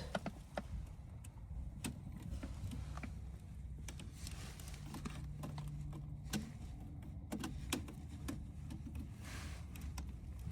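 Scattered light clicks and taps of hands working small wires and terminals, over a low steady hum, with a brief steady low tone in the middle.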